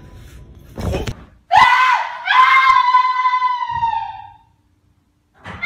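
A high-pitched human scream: a short cry about a second and a half in, then a long scream held for about two seconds that trails off. A second scream starts at the very end, and a brief noisy burst comes about a second in.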